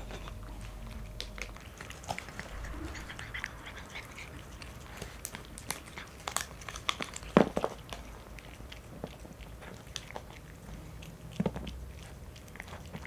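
Two cats eating a snack from ceramic bowls: irregular small clicks and crunches of chewing and licking, with one louder click about seven seconds in.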